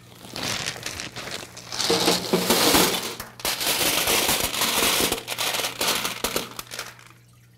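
Small river rocks poured from a bag into a fountain's metal rock tray and spread by hand: a dense clatter of stones knocking together. It stops about seven seconds in.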